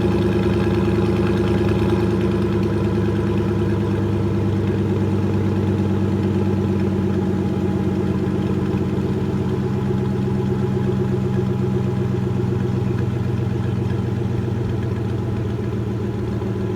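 2015 Chevrolet Silverado idling steadily through a Corsa Sport cat-back exhaust with the third catalytic converter deleted, on the fast idle of a cold start; the exhaust note eases slightly toward the end.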